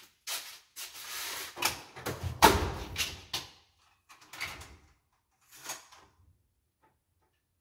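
Metal tool chest drawer sliding and tools clattering as someone rummages for a tool: a run of scrapes and knocks, the loudest about two and a half seconds in, then two fainter knocks.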